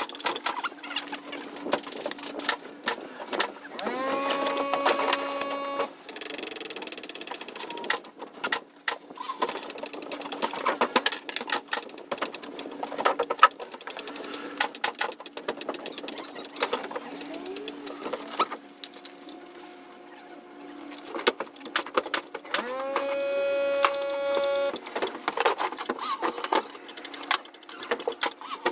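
Clicks and taps of hand work with tools at a scooter's handlebar and front brake master cylinder. Twice, about four seconds in and again about three quarters of the way through, a small electric motor whirs for a couple of seconds, rising quickly to a steady pitch.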